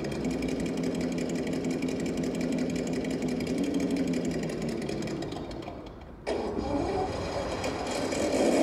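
Electric motor and gearbox of a Traxxas TRX-4 Defender RC crawler whining steadily as it creeps over stone paving. The whine fades about five seconds in, cuts back in abruptly a second later, and grows louder near the end.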